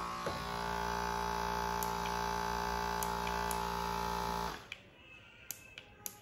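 Caresmith Charge Flex cordless massage gun running with a steady motor hum, which cuts off suddenly about four and a half seconds in. A few sharp clicks follow.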